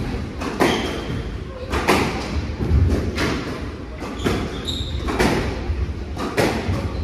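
Squash rally: the ball cracks sharply off the rackets and the front wall about once a second, echoing in the glass court. There are a couple of brief shoe squeaks on the wooden floor.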